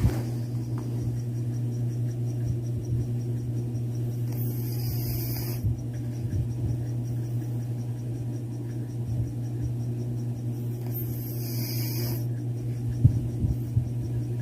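A sleeping cat snoring: two breathy rasps, each about a second and a half long and some six seconds apart, over a steady low hum.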